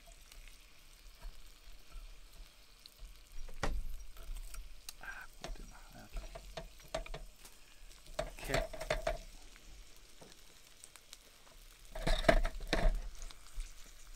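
Yakitori chicken pieces sizzling in hot olive oil and garlic in a cast-iron skillet. There are clinks and scrapes against the pan about a third of the way in, around the middle and loudest near the end.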